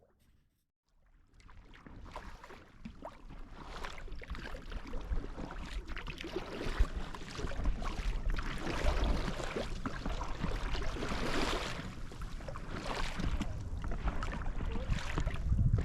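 Water sounds of an inflatable kayak being paddled: splashing and swishing that swell and ease with the strokes, under a low rumble. It starts out of about a second of near silence and grows louder.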